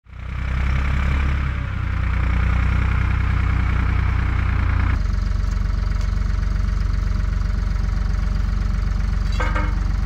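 An engine idling steadily with a low hum. Its tone shifts slightly about halfway through.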